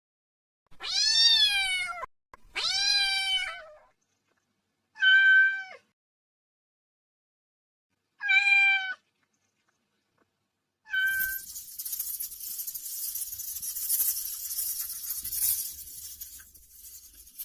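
Kitten meowing for its mother: five calls, the first two long and arching in pitch, then three shorter ones spaced a few seconds apart, the last cut short. About eleven seconds in, a steady high-pitched hiss starts and runs on.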